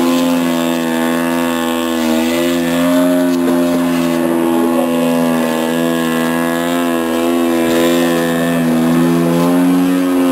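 Engine and propeller of a 40% scale RC aerobatic plane running steadily at high power while it holds a prop hang, nose straight up on propeller thrust. The pitch dips and rises a little as the throttle is worked to hold the hover.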